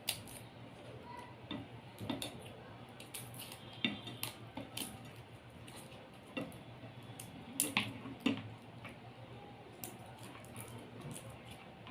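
Garlic cloves having their skin scraped off: faint, irregular clicks and light scrapes, with small knocks now and then.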